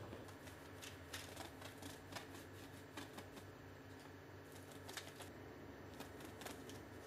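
Faint bakery kitchen sounds: scattered light clicks and clatters over a low steady hum.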